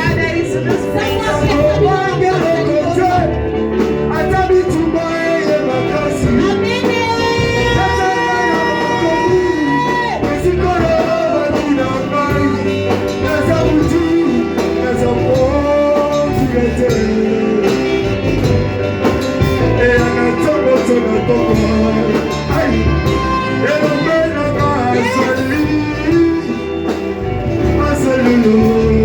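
Live worship music: singing over a band, loud and steady, with one long note held from about seven to ten seconds in.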